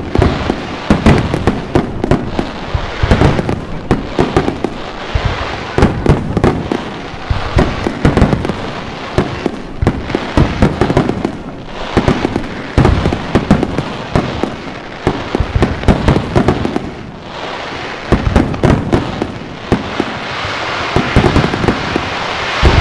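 Aerial fireworks display: a rapid, continuous barrage of shell bursts and sharp reports, turning into a denser crackling near the end.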